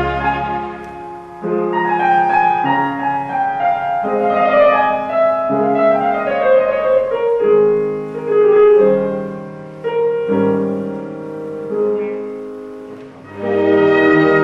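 Instrumental background music in a classical style, piano to the fore, with held notes and chords changing about once a second.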